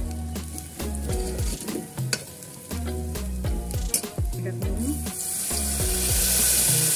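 Onion and spice masala sizzling in hot oil in a pressure cooker while a steel spoon stirs it, scraping and clicking against the pot. The sizzle swells louder from about five seconds in.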